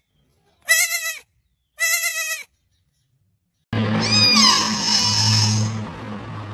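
Sheep bleating twice, about a second apart. After a short silence comes a steady background with a low hum and a couple of high, falling whistle-like calls.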